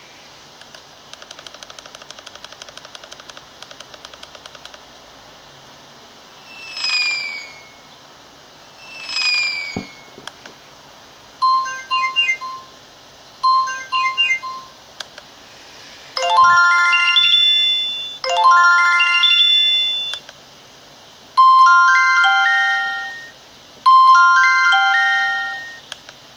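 Alcatel Big Easy A382g phone ringtones played one after another. First a fast train of ticks, then two falling chirps, short clusters of beeps, two rising runs of electronic tones and a short tune, with each pattern heard twice.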